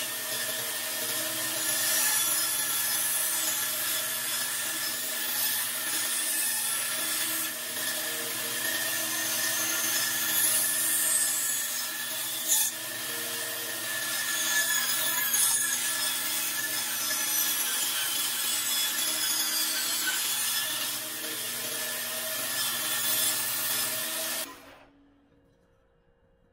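Grizzly bandsaw running and cutting a wooden spoon blank: a steady motor and blade hum with the noise of the blade cutting through the wood, and one sharp click about halfway. The sound drops away abruptly about two seconds before the end.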